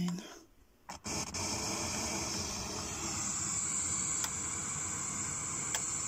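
Pink noise test signal played through a JBL 8330 mkII cinema surround loudspeaker: a steady, even hiss that switches on with a click about a second in, with a couple of faint ticks later.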